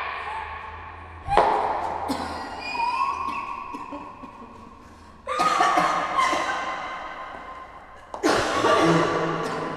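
Three sudden heavy hits of dramatic film sound design, coming about every three seconds, each ringing and fading slowly over a few seconds.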